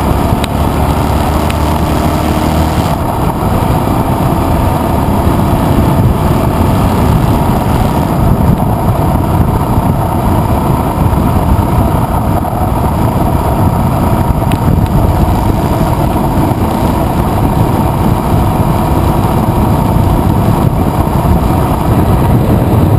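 Adventure motorcycle engine running under way on a gravel road, with heavy wind rush on the camera microphone as the bike speeds up. The engine's note is clear for the first few seconds, then the wind noise largely covers it.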